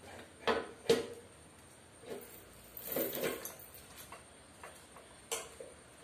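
Knocks and clicks of a mini pocket bike's fuel tank being handled and fitted onto the frame: two sharp knocks about half a second apart near the start, a brief rattle around three seconds in, and another knock near the end.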